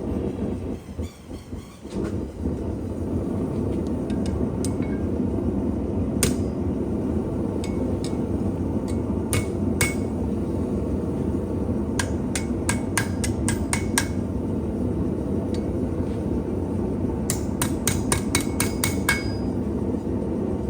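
Blacksmith's hammer striking steel on an anvil, a few single blows and then two quick runs of about seven or eight strikes with a slight ring, over the steady noise of the forge running.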